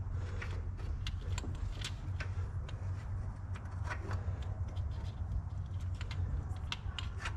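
Scattered light metal clicks and taps as a camshaft synchronizer is worked down into a Jeep 4.0 engine block, its gear being turned to mesh with the camshaft teeth, over a steady low hum.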